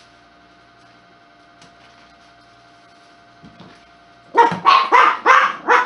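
A faint steady hum, then about four seconds in dogs break into loud, quick barking, about five barks in a second and a half.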